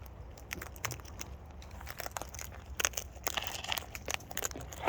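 Birds pecking and crunching seed: a run of quick, irregular clicks and crackles, with a sharper, louder click at the very end.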